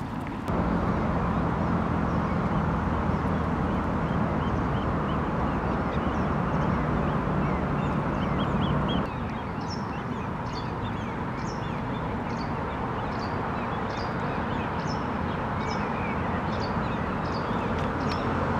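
Barnacle goose goslings peeping: a string of short, high calls repeating a little under twice a second, over a steady rushing background noise from an unshielded camera microphone.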